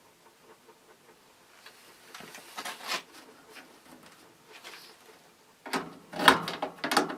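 Metal and plastic parts of an old window air conditioner being handled during disassembly: scraping and rattling about two and a half seconds in, then a louder burst of clattering and knocks near the end.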